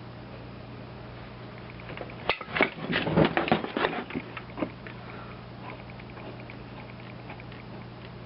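Metal vise parts and a tool clanking and knocking for about two seconds, a quick run of sharp metallic hits, followed by faint, quick, evenly spaced ticking, all over a steady low hum.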